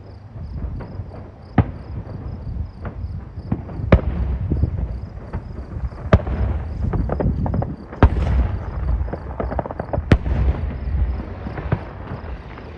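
Fireworks display: sharp loud bangs about every two seconds over low rolling booms and dense crackling.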